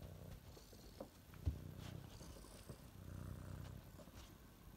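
A cat purring, a faint low rumble, with a few light knocks and one sharper thump about a second and a half in.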